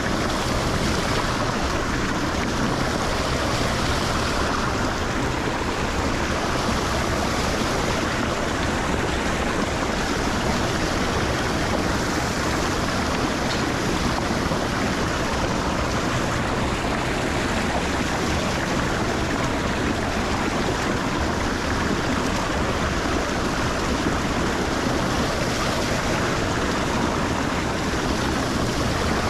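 Water rushing steadily into a cleared lake drain, a constant loud wash of flowing water with a great deal of water coming in on both sides.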